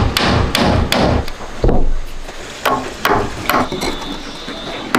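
Hammer blows on wood: about eight sharp strikes in uneven groups, the first three in quick succession.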